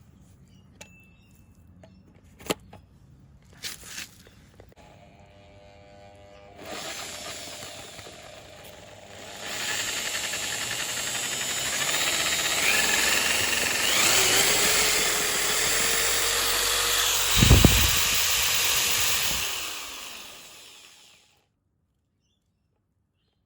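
Corded power drill spinning a wet paint roller fitted on a 38 mm hole saw bit to fling the paint water out. After a few light handling clicks, the drill starts about seven seconds in, runs loud and steady for about ten seconds with a brief low thump near the end, then winds down and stops.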